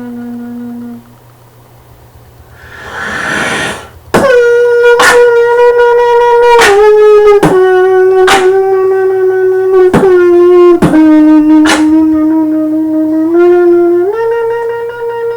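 Beatboxer's mouth-made alien sound effect. A breathy rush leads into a loud, held, horn-like buzzing tone that steps down in pitch and back up, and slides downward at the end. The tone is cut through by about eight sharp clicks.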